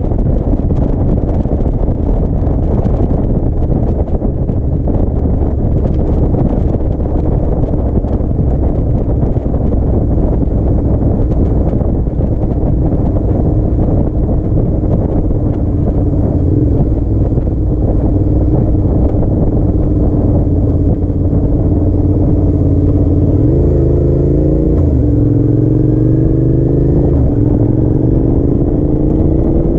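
Motorcycle engine running at road speed under heavy wind rumble on the microphone. About three-quarters of the way through the engine note dips, then climbs steadily as the bike accelerates.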